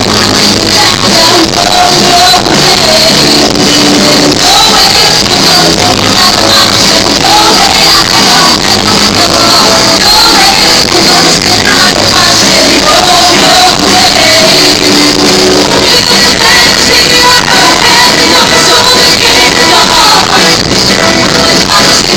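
A live band and singers performing a pop-rock musical-theatre song in a hall. The sound is loud and crudely recorded, with poor quality.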